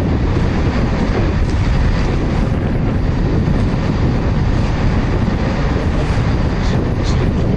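Steam locomotive 60163 Tornado, an A1 Peppercorn three-cylinder Pacific, approaching on the main line, its running noise mixed with wind buffeting the microphone.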